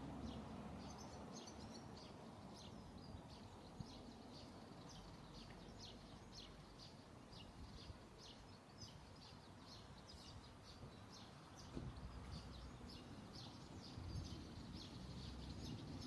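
Small birds singing: a continuous run of short, high chirps, several a second, over faint low background noise.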